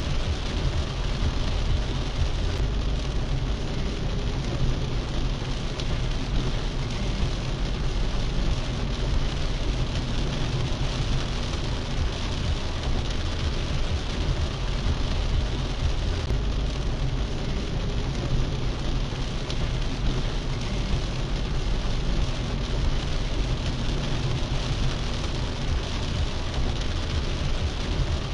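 Heavy rain drumming steadily on a car's roof and windshield, heard from inside the cabin, over a low, steady rumble of the car.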